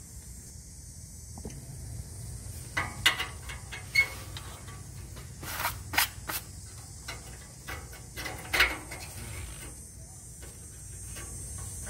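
Light metal clinks and knocks as a steel U-bolt exhaust clamp is handled and fitted around the exhaust pipe, a handful of sharp ones between about three and nine seconds in, over a steady low hum.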